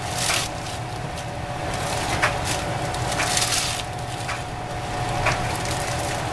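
Plastic ramen noodle wrappers crinkling and rustling in several bursts as packets are torn open and the dry noodle blocks are tipped out, with a few sharp clicks. A kitchen exhaust fan hums steadily underneath.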